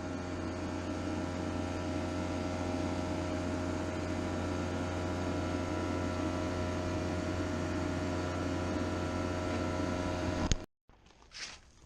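A steady mechanical hum from a running machine, with several fixed tones over a low drone. It cuts off suddenly near the end.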